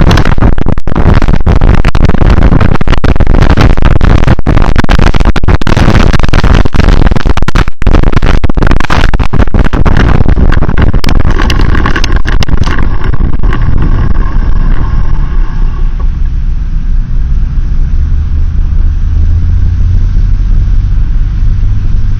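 Heavy wind and travel noise buffeting a moving camera's microphone, loud and crackling with frequent brief dropouts. After about thirteen seconds it eases into a lower, steadier rumble.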